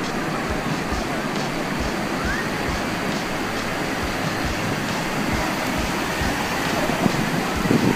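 Ocean surf: waves breaking and washing up the beach as a steady rushing.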